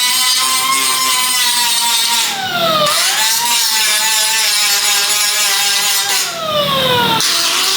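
Electric grinder running on metal, a high whine over a grinding hiss. Twice the whine sags in pitch and the hiss drops away as the tool eases off, then it spins back up.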